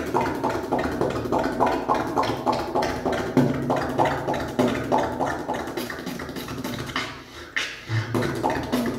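Solo beatbox freestyle: fast mouth-made drum patterns of kicks, snares and hi-hat clicks, with a held low hummed tone sounding underneath in stretches.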